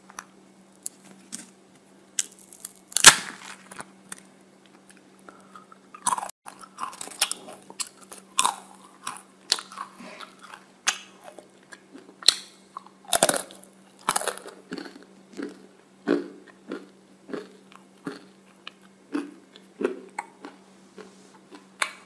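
Crisp waffle cone being broken and bitten, close-miked: a loud crack about three seconds in, then steady crunching and chewing at roughly one to two crunches a second.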